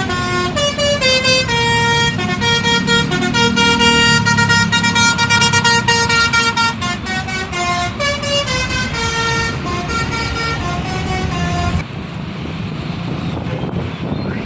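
An Indonesian bus's 'basuri' telolet musical horn plays a quick melody of short stepped notes over the rumble of the bus engine. The tune cuts off abruptly about twelve seconds in, leaving only a steady noisy rumble.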